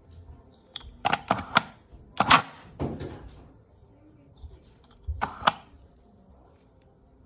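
Sharp clicks and knocks from hard parts being handled: a quick cluster about a second in, then two more near the end.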